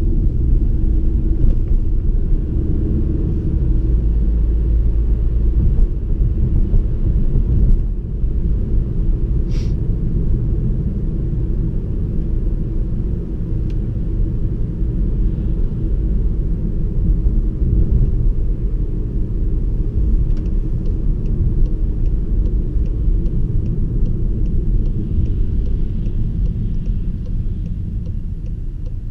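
Low, steady rumble of a 2016 VW Passat B8's turbocharged 2.0 TSI four-cylinder and its tyres, heard from inside the cabin while driving. The engine is tuned with an aftermarket intake and a chip box. A faint, regular ticking comes in over the second half.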